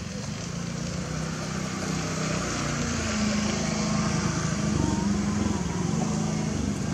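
A motor vehicle's engine running, growing louder a couple of seconds in, with its pitch shifting slowly.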